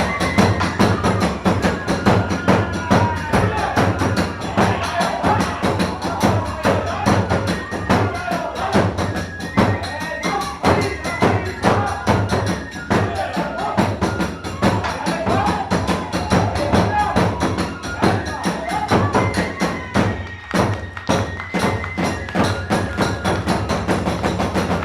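Hiroshima-style kagura hayashi playing a fast dance piece: a rapid, driving beat of drum strikes and clashing tebyōshi hand cymbals, with a wavering bamboo-flute melody above.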